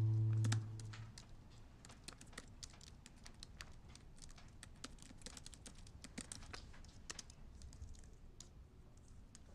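Typing on a computer keyboard: a quick, irregular run of light key clicks. A held music chord cuts off just under a second in.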